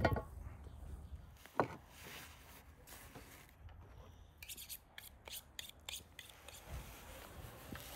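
Raw beef hooves knocking and clunking as they are handled in an enamel bowl: a sharp knock at the start and another about a second and a half in. Later come a run of faint light clicks and a couple of soft thumps.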